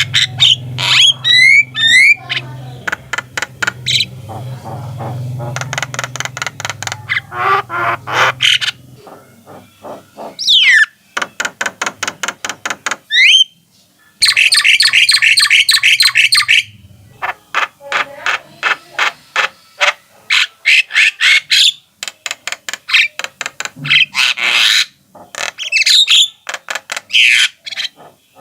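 Javan mynas calling: long runs of fast, harsh rattling chatter, broken by a few short rising whistled notes.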